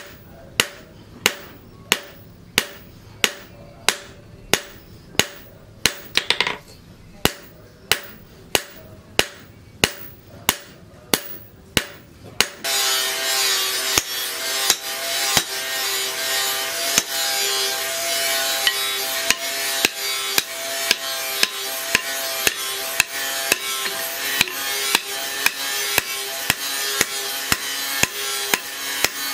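Hammer blows ringing on leaf-spring steel being forged into an axe, about one and a half strikes a second. About twelve seconds in, a steady loud hiss joins, and the blows continue slightly faster.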